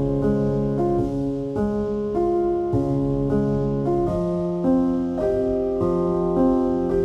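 Background piano music, a steady run of chords changing about twice a second.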